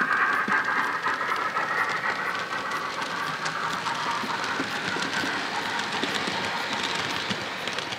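Model LNER P2 steam locomotive's DCC sound decoder playing steam running sounds through its small speaker, fading as the locomotive draws away. The model coaches' wheels give a light clickety-clack over the rail joints.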